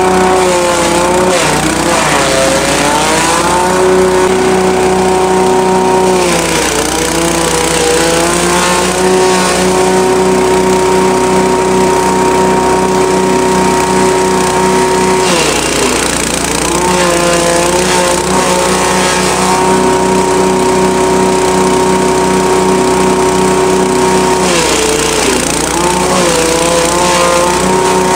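Belt-driven grass chopper running on its small engine. The engine note drops four times as bundles of elephant grass go into the blades, then climbs back to speed each time as the load clears.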